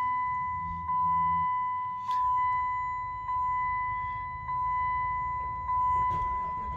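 Chrysler 300C dashboard warning chime sounding at switch-on: a steady high beeping tone that restarts about every second and a quarter, fading slightly between restarts.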